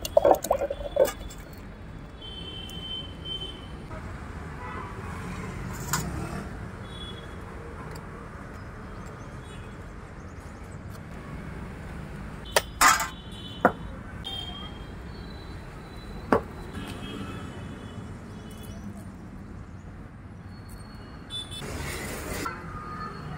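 Steady street background of traffic, broken by a few sharp clinks of a serving spoon on steel vessels: a quick cluster in the first second, more around thirteen seconds and one near sixteen seconds.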